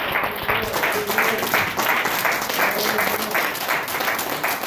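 Congregation applauding, with a few voices calling out over the clapping.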